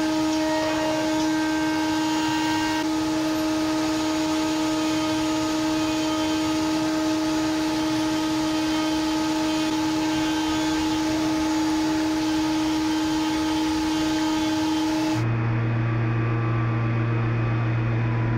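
Steady hum of shop machinery, one pitched drone held without change, which cuts abruptly to a deeper, lower hum near the end.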